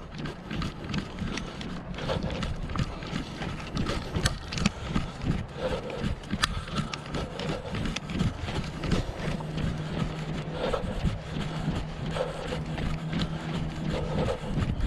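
Walking footsteps of a person and a large dog on an asphalt street, a steady rhythm of short steps, with a low steady hum joining about nine seconds in and fading near the end.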